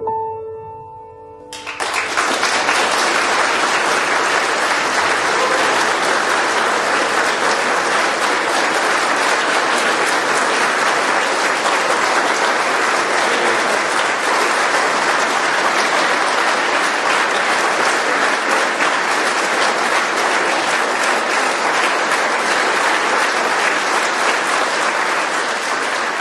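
The last notes of a grand piano die away, then about a second and a half in an audience bursts into applause that stays steady and loud.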